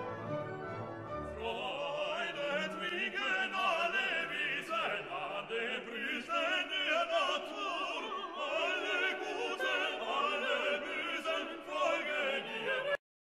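Backing music: orchestral at first, then, about a second and a half in, an operatic voice sings with wide vibrato over the orchestra. The music cuts off suddenly near the end.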